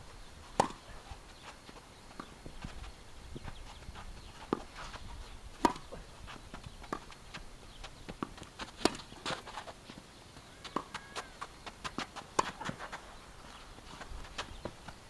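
Tennis rally: sharp pocks of the ball being struck by rackets and bouncing on the court, at uneven intervals of a second or more, the loudest about half a second in and again about five and a half seconds in, with lighter taps and footsteps in between.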